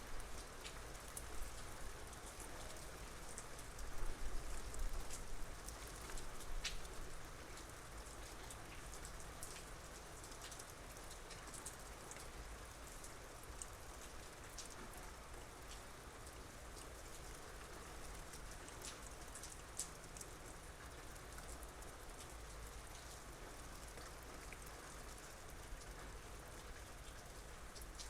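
Soft rain falling: a steady hiss with many separate drops ticking on surfaces. A brief low rumble rises about four seconds in.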